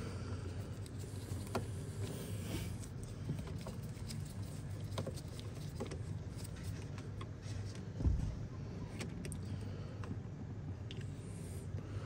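Faint clicks and scrapes of a screwdriver backing out the last screw of an ignition switch on a car's steering column, the switch then being worked loose, with a low steady hum behind and one louder bump about eight seconds in.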